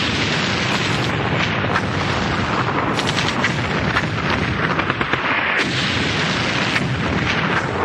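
A loud, unbroken rumble of explosion and gunfire sound effects, with sharp cracks now and then, used as a dramatic bed in a radio show's opening.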